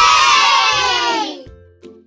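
A group of children cheering "Yay!" together in one short, loud cheer that fades out after about a second and a half.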